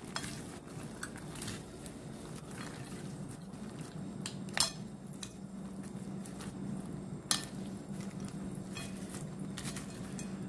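Plastic serving spoon and fork tossing popcorn and french fries in a glass bowl: light rustling with scattered clicks and clinks of the utensils against the bowl, two sharper knocks around the middle. A faint steady hum underneath.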